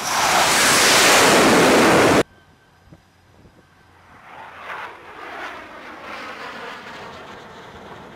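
F/A-18 fighter jet's engines roaring loudly as it touches down and traps on the carrier deck, cut off suddenly about two seconds in. After a short lull, fainter jet engine noise swells and wavers in pitch, with wind on the microphone.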